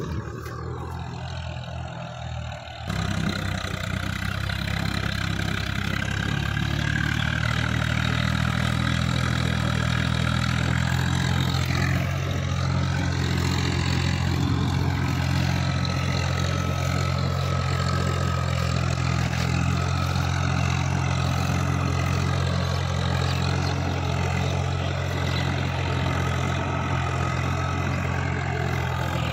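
Farm tractor's diesel engine running steadily while pulling a tillage implement through a wet paddy field. It gets louder about three seconds in, and its pitch dips and recovers briefly about twelve seconds in.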